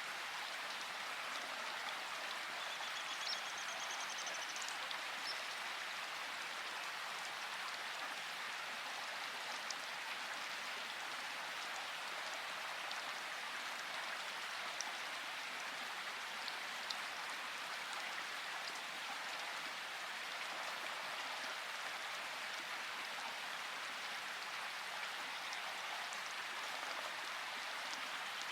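Steady rain falling in a forest, an even hiss with scattered sharp drop ticks. A bird gives a brief high trill about three seconds in.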